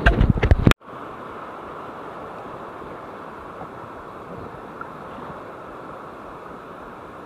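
A short burst of loud bumps and wind buffeting on the microphone, cut off abruptly under a second in. Then the steady wash of sea surf and wind around the wader's legs.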